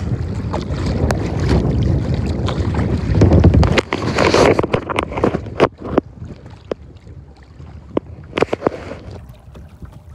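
Wind buffeting the microphone with choppy lake water slapping and splashing around a kayak and its paddle. The wind rumble drops away about four seconds in, leaving a bright splash and then scattered sharp slaps of water.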